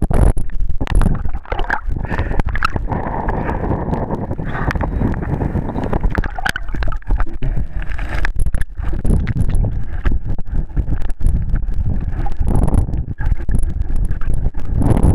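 Muffled underwater noise picked up by a submerged camera: a dense low rumble of moving water with frequent short knocks and clicks.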